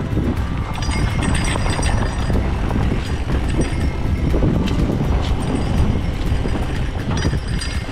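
Fat bike rolling fast downhill over a dirt mountain trail: a steady rumble from the wide tyres and wind on the microphone, with constant small rattles and knocks from the bike over the rough ground.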